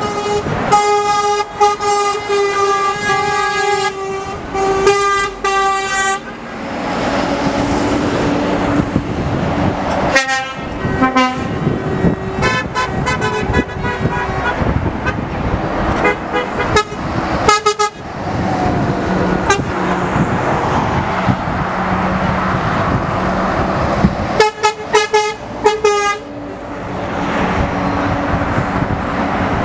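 Lorry air horns blowing as a convoy of trucks passes: one long blast broken by short gaps at the start, scattered short toots in the middle, and a quick run of toots near the end, over the steady running of diesel engines and tyres.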